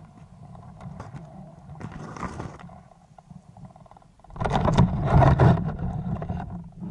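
Underwater sound of a freediver swimming, heard through the camera housing: water rushing and rumbling over it in swells. The loudest swell comes about four to six seconds in as the diver heads down.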